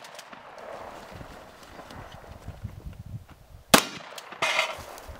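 A single 12-gauge shotgun shot about three and a half seconds in, followed half a second later by a brief rattle, over faint knocks and shuffling.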